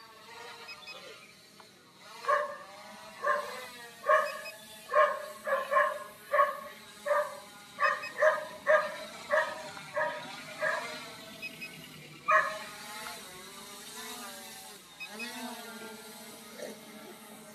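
A dog barking repeatedly: a run of about fourteen barks over some eight seconds, then one more bark after a pause and a few softer calls.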